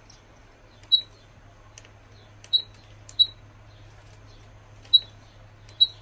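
Five short, high-pitched chirps at uneven intervals over a low steady hum.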